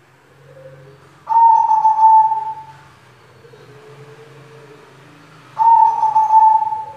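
White zebra dove (perkutut) cooing: two loud calls about four seconds apart, each starting suddenly and holding a long note that sinks slightly in pitch as it fades.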